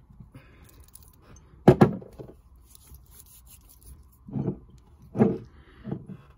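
Handling knocks on a wooden desk as a glass perfume bottle is moved and set down: one sharp knock about two seconds in, then three duller thumps near the end.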